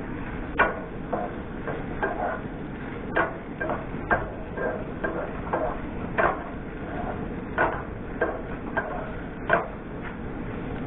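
Wooden spatula stirring meat in a stainless steel frying pan, knocking and scraping against the pan about a dozen times at an uneven pace, over a steady sizzle of frying.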